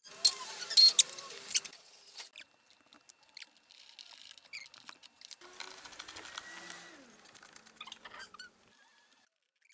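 Hand tools and metal parts being worked on: a quick cluster of loud clicks and rattles in the first two seconds, then scattered knocks, taps and scraping.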